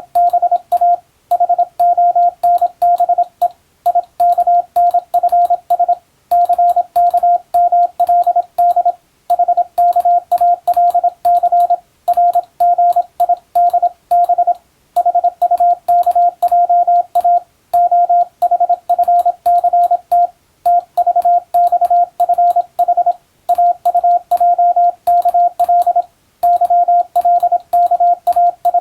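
Morse code tone keyed on and off in quick dots and dashes, sending text in groups with short pauses between words.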